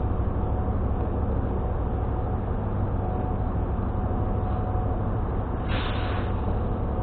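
Steady low engine rumble on a ferry's car deck, heard from inside a vehicle, with a faint steady whine over it. A brief hiss comes about six seconds in.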